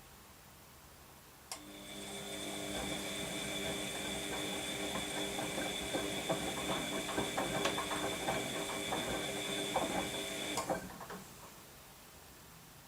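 Washing machine motor whining as it turns the drum for about nine seconds, with many irregular clicks and knocks from the tumbling load. It starts with a sharp click and stops with another.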